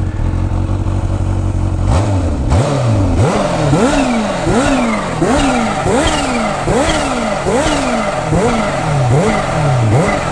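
Kawasaki H2's supercharged inline-four engine idling, then blipped about a dozen times in quick succession from about two seconds in. Each rev rises sharply and falls back, and the supercharger's whine rises and falls with it.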